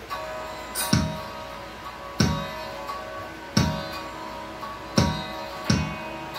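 Medeli DD-315 electronic drum pad played with sticks: sampled kick-drum hits, each with a bright cymbal-like top, about one every second and a half in a slow beat. A steady held chord sounds under them.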